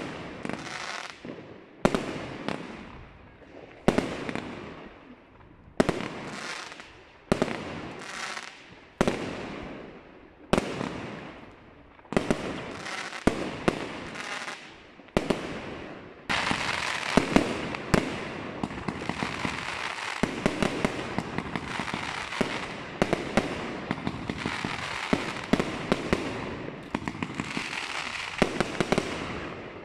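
J-Fireworks Lumberjack firework battery firing: single shots about once a second, each bursting into crackle overhead. About halfway through it turns to a dense, continuous crackling full of sharp pops, which thins out near the end.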